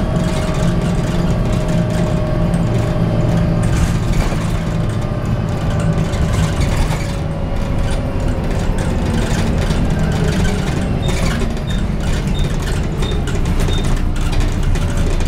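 Volvo B7TL double-decker bus heard from its upper deck while under way: its six-cylinder diesel and drivetrain running, with a whine that falls slowly in pitch. A faint, regular high pipping, about one and a half a second, starts about eleven seconds in.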